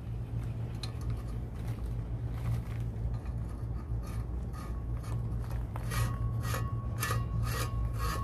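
Propeller nut on a Volvo Penta sterndrive's prop shaft being tightened with a hand tool: from about six seconds in, rhythmic metallic rasping strokes about two a second, with a faint ringing tone, over a steady low hum.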